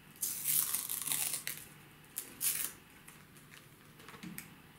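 Packaging crinkling and rustling as an accessory is unwrapped by hand, in two bursts, followed by a few light taps.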